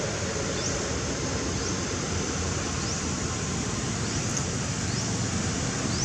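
Steady rushing outdoor noise with no clear pitch, and faint short high chirps rising in pitch every second or so.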